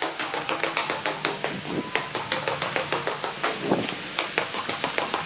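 Footsteps going quickly down a concrete staircase with anti-slip edged steps: a fast run of sharp shoe clicks, several a second.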